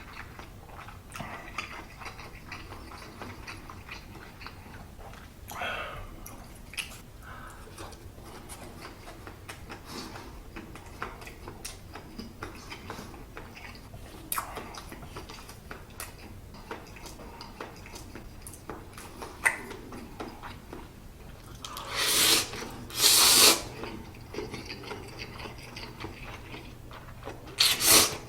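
Close-miked chewing of spicy stir-fried instant noodles, with many small wet clicks and mouth smacks, and two louder breathy rushes of sound, one a little after twenty seconds in and one near the end.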